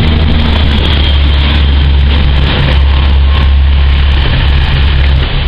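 Diesel multiple unit with a Class 143 Pacer at the rear, its underfloor diesel engines running under power as it pulls out, a steady low drone.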